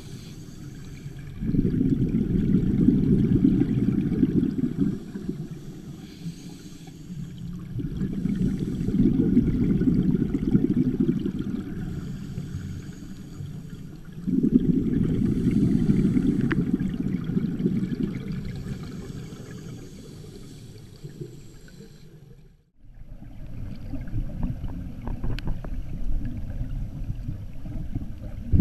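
Underwater rumble and gurgle of scuba divers' exhaled regulator bubbles, muffled through a GoPro's waterproof housing. It swells and fades in surges about six seconds apart, breaks off briefly about three-quarters through, then runs on more evenly.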